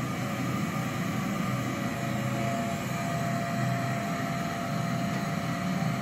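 Canister vacuum cleaner running steadily as its floor head is pushed over carpet tiles, a continuous motor hum and rush of suction with a faint steady whine that comes in about halfway through.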